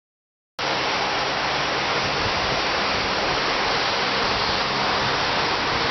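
2007 Cummins ISX inline-six diesel engine running steadily, a loud dense wash of noise with a low steady hum beneath. The sound cuts in suddenly about half a second in, after silence.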